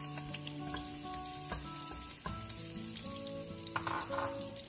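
Chopped garlic sizzling in hot oil in a frying pan: a steady hiss with a few sharp clicks.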